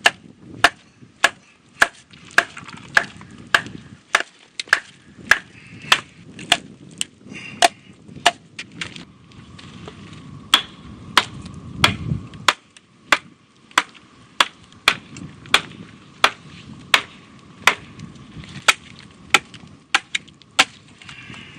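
Sharp, repeated strikes on wood, about two a second with a few short pauses: a wedge being hammered down into a split driftwood log to split it into a board for a paddle.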